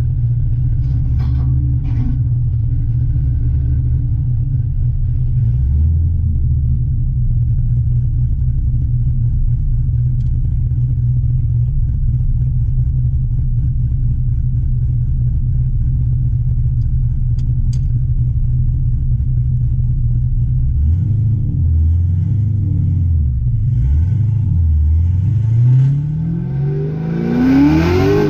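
2004 Pontiac GTO's 5.7-litre LS1 V8 running steadily at low revs. From about three quarters of the way in, the revs rise and fall several times, then climb sharply under hard acceleration near the end.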